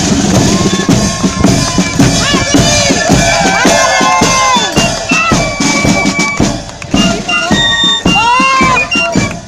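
Marching band playing in a street parade: pipes carrying the melody over bass and snare drums.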